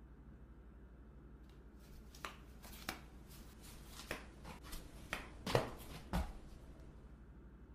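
Footsteps in flip-flops on a hard floor: about ten quick, uneven steps starting about two seconds in, the last two loudest as the walker stops.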